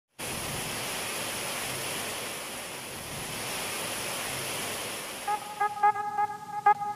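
Heavy rain pouring down in a steady hiss. About five seconds in, the rain fades and music with a steady beat starts.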